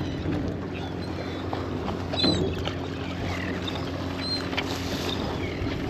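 Boat engine running steadily at idle over water and wind noise, with a few faint short high chirps.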